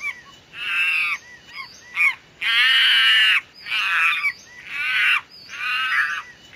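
A bird cawing: about seven harsh calls in a row, the longest lasting about a second just before the middle.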